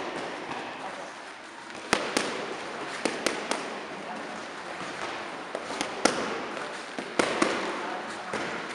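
Boxing gloves smacking leather focus mitts: sharp slaps that come mostly in quick pairs and a triple, like one-two combinations, over a steady background hubbub.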